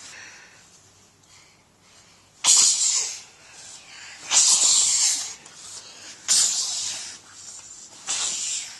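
A child making loud hissing 'pssh' noises with his mouth, four times about two seconds apart, each starting sharply and fading away within a second.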